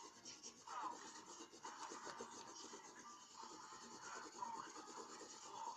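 Faint scratching of a pencil drawing on paper, in many short irregular strokes.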